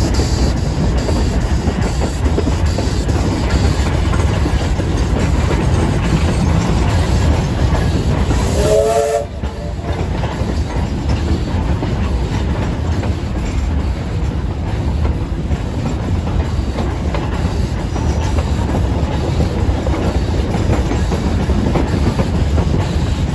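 Heritage train heard from an open carriage on the move: a steady rumble of wheels running on the track, with a brief tone about nine seconds in.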